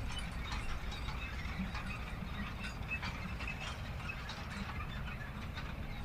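Manure spreader running: irregular mechanical clattering and rattling over a steady low rumble.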